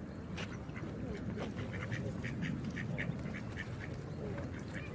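Geese calling in a rapid run of short honks, about four a second, over a steady rush of running water.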